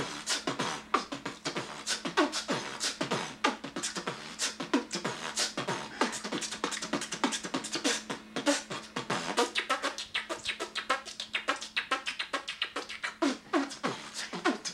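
A young man beatboxing: a fast, steady rhythm of mouth-made clicks, pops and hisses.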